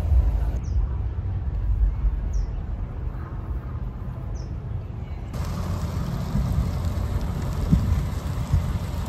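Wind rumbling on the microphone outdoors, with three faint bird chirps in the first half. About five seconds in the sound changes abruptly to a steady rush of wind and road noise, heard while riding a bicycle.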